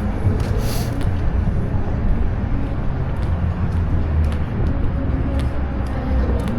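City street ambience picked up by a small action camera's built-in microphone: passing traffic mixed with a steady low wind rumble on the mic, with a few light clicks.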